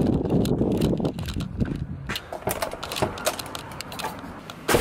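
Handling noise from a camera carried while walking: rustling and scattered small knocks, with one louder knock near the end.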